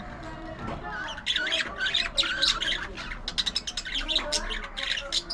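A flock of budgerigars chirping, warbling and squawking in a fast, busy chatter of many short calls.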